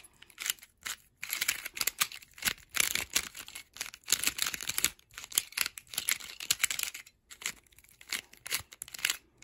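Volt V2 Square-1 puzzle being turned fast by hand: a quick, uneven run of plastic clicks and clacks as its layers twist and the middle slices, with a few short pauses. It is the parity stage of the solve.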